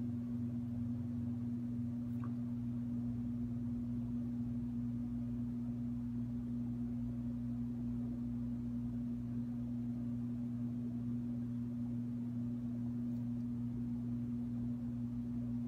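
Steady electrical hum, one low tone with a deeper drone under it, unchanging throughout.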